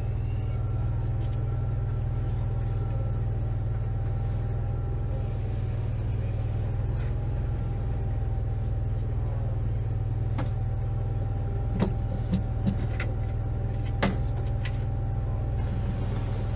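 Bricklaying robot rig's machinery running with a steady low hum and a faint steady whine, with several sharp clicks in the second half.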